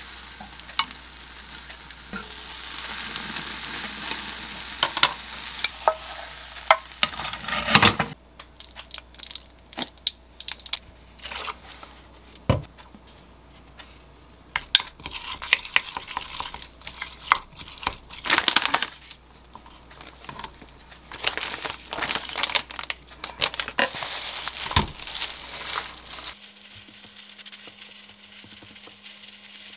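Beaten egg sizzling in a rectangular omelette pan as it is rolled up with chopsticks and a spatula. Next come scattered clinks and scrapes of a spoon stirring chopped onion and mayonnaise in a glass cup. Near the end there is a light crinkle of plastic-gloved hands spreading rice over a sheet of laver.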